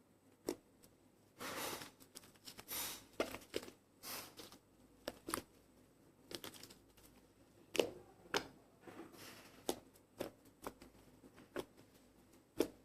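Slime being squeezed and pressed, making irregular short squelches and sharp sticky clicks.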